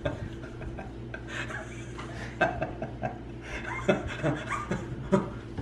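Mostly silent, breathy laughter with short chuckles from a man and a woman, over the clicking and rubbing of small plastic candy drums being handled and their lids twisted.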